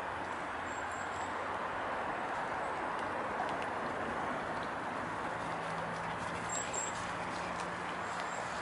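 Steady outdoor background noise, with a few faint short high chirps and a faint low hum coming in about halfway through.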